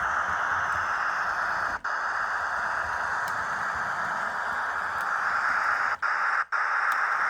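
H0 model train running on a layout, a steady whirring of the locomotive motor and the wheels on the track. The sound drops out for an instant three times, once about two seconds in and twice near the end.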